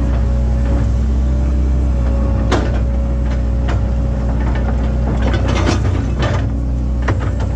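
Link-Belt excavator's diesel engine running steadily under load, with scattered knocks and clatter from the bucket working. The loudest knock comes about two and a half seconds in, with a cluster of smaller ones later.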